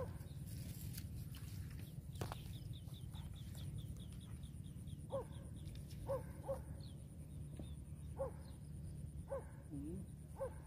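Short animal calls, one about every second in the second half, over a steady low rumble, with a quick run of high ticks about three seconds in.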